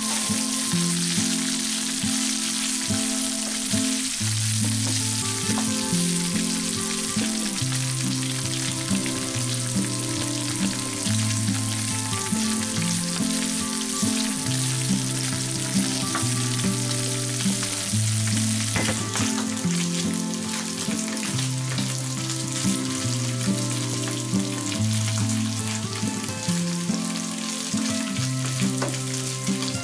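Coarse minced pork sizzling in oil in a frying pan as it browns, stirred now and then with a spatula. Background music plays underneath.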